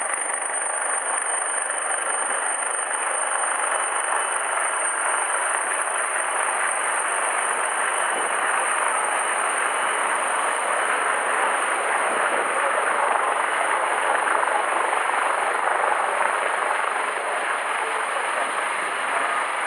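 Steady rushing noise of wind and water on the deck of a patrol ship under way, with no pauses or beats.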